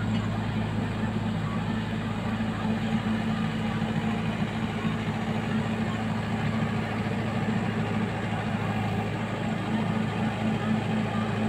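Mahindra 585 DI tractor's four-cylinder diesel engine running steadily under load as it drives a rotavator through flooded paddy-field mud, with a constant low hum.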